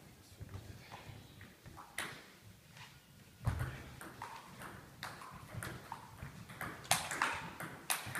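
Table tennis rally: the ball clicking off the bats and bouncing on the table in an irregular back-and-forth, the hits coming quicker near the end.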